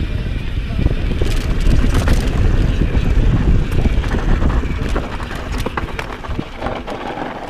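Mountain bike riding fast down a dirt singletrack: wind buffeting the microphone over tyre noise and rapid clicks and rattles from the bike. It eases off about five seconds in.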